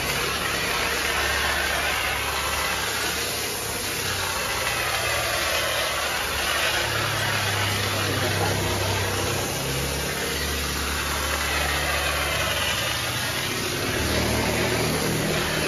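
Water from a hose being flushed through a Peugeot 307 radiator, gushing out of the core and splashing over a tiled floor, with a low mechanical hum that comes and goes underneath. The radiator is heavily clogged with dirt, so the water pushes through it only slowly.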